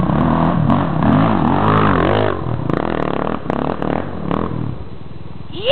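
Dirt bike engine revving hard and unevenly under load as it climbs a steep dirt hill, its pitch rising and falling with the throttle. The engine sound drops away about four and a half seconds in as the bike stops at the top.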